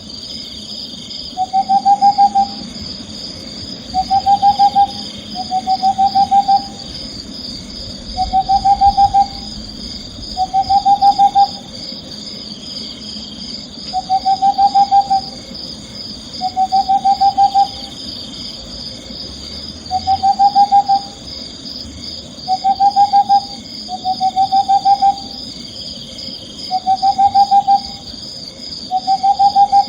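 Owl giving short trilled hoots, each about a second long and repeated every two seconds or so, over a steady high-pitched chirring.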